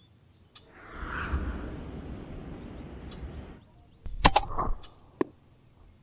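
A shot from an EDgun Leshiy 2 PCP air rifle with a Hades hollow-point pellet about four seconds in: sharp cracks and the loud smack of the pellet hitting a squirrel close together, then a single click about a second later. Before the shot, a rushing noise runs for a couple of seconds.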